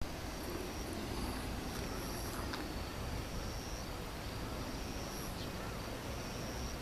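Outdoor ambience: a steady low rumble with short, faint high-pitched chirps every second or two and a couple of soft clicks.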